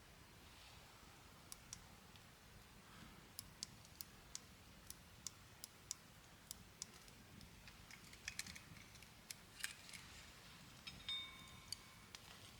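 Faint, irregular sharp clicks and ticks, with a short metallic ring near the end.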